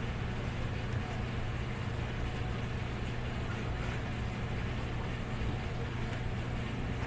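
Steady low hum over an even wash of outdoor background noise, unchanging throughout.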